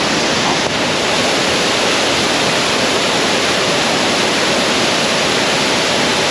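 Loud, steady rush of a waterfall's falling water, even and unbroken.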